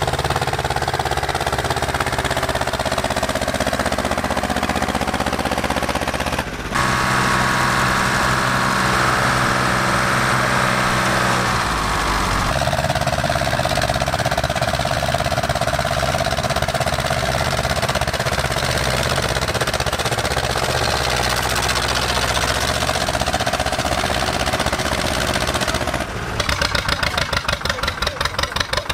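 A red Ursus tractor's diesel engine working hard under load as it pulls a weight sled. Near the end a Zetor 25's two-cylinder diesel idles with an even thudding beat, about four a second.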